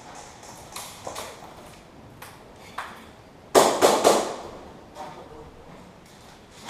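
Airsoft electric guns (AEGs) firing: a few single sharp shots, then a quick loud run of four or five shots a little past halfway, followed by a few fainter ones.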